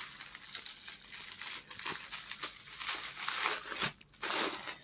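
Clear plastic packet crinkling and rustling under the hands as it is handled and opened, in an uneven run of rustles with a brief pause about four seconds in.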